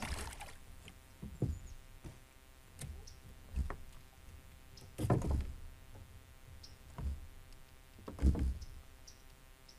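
Irregular hollow knocks and thumps against a kayak hull while a hooked white bass is fought on rod and reel, about eight in all, the loudest about halfway through and near the end.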